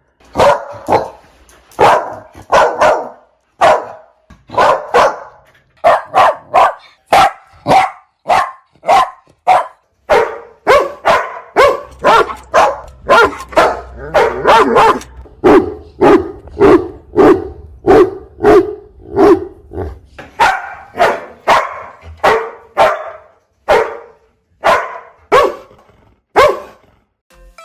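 Dogs barking over and over in sharp, loud barks, about one or two a second. In the middle stretch comes a run of deeper barks.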